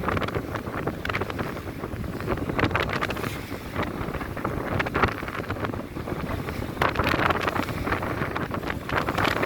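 Strong wind buffeting the microphone over the rushing of rough sea water around a sailboat, with several louder splashing surges, the strongest in the second half.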